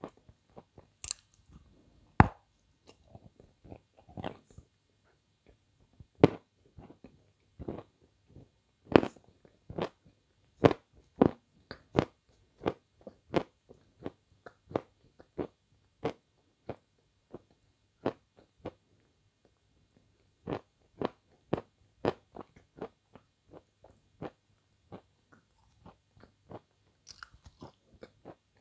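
Close-up biting and chewing of a glazed ice cream bar, the hard coating cracking in sharp, irregular crunches roughly one or two a second, with a short pause about two-thirds of the way through.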